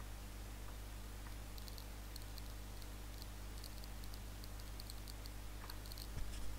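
Faint runs of quick clicks from a computer mouse and its scroll wheel, over a steady low electrical hum.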